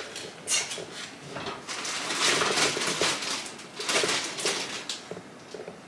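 Popcorn popping in a pot on the stove: a dense run of quick pops and rattles, thickest in the middle and thinning near the end.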